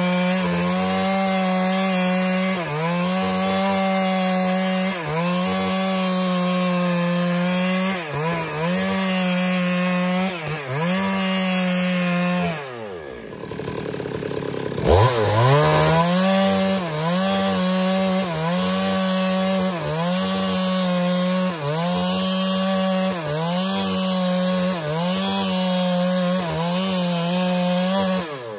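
Stihl MS 382 two-stroke chainsaw with a 25-inch bar ripping lengthwise along a red meranti log, running at high revs under load, its pitch dipping briefly every couple of seconds. About halfway through it drops to idle for a couple of seconds while the saw is moved along the log, then revs sharply back up into the cut.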